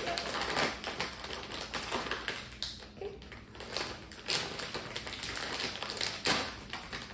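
A plastic snack bag of Aerial sour cream and onion chips crinkling and crackling as it is gripped and pulled open by hand. The crackles are irregular, with a couple of louder snaps about four and six seconds in.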